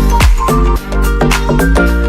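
Background electronic dance music with a steady beat of about two strokes a second.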